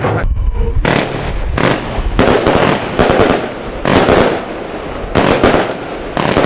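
Fireworks going off: a series of about seven loud bangs, roughly one a second, each with a short fading tail.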